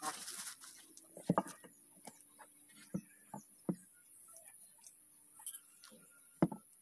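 Kitchen knife knocking against a wooden chopping board while raw pork is sliced: a handful of short, light knocks at irregular intervals.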